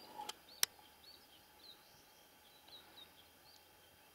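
Faint, short high chirps of a small bird, several spread over a few seconds. A sharp click comes just over half a second in.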